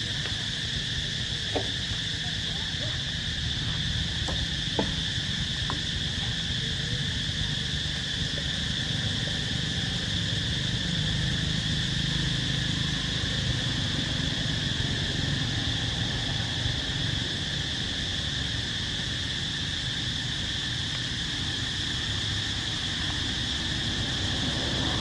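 Steady, unbroken insect drone, a high-pitched chorus of cicadas or crickets, over a low steady rumble. A few short faint clicks sound in the first five seconds.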